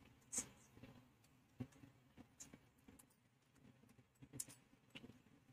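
Faint, scattered rustles and light clicks of fresh coriander being handled, its thick stems picked out on a perforated steel plate.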